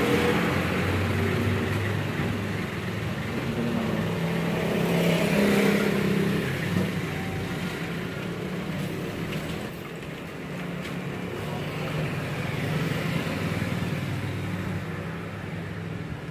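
A motor vehicle's engine running steadily, its pitch and loudness wavering and swelling about five seconds in.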